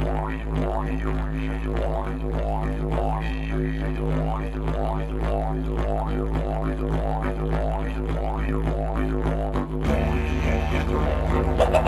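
Didgeridoo music: a steady low drone with a rhythmic, repeating sweep in its tone. About ten seconds in it shifts to a louder, busier passage.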